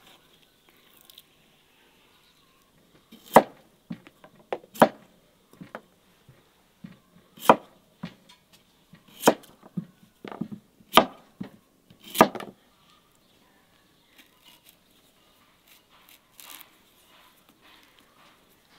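Knife chopping through a rack of lamb onto a thick wooden cutting board: about seven sharp strikes, irregularly spaced a second or so apart, then only faint handling sounds for the last few seconds.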